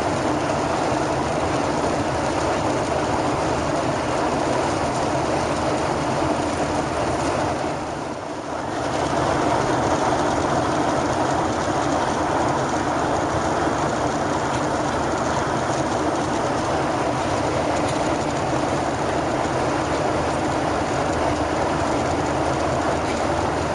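Steady cabin noise of a Boeing 737-800 in flight: the even rush of air and hum of its CFM56 jet engines, dipping briefly about eight seconds in.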